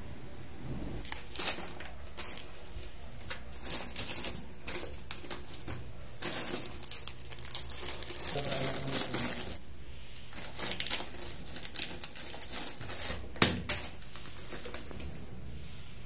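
Irregular clicks, knocks and rustling, as of small objects and packaging being handled.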